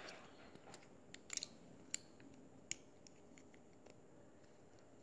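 Near silence with a few faint, sharp clicks, spaced about half a second to a second apart in the first three seconds, from plastic Lego bricks being handled and fitted together.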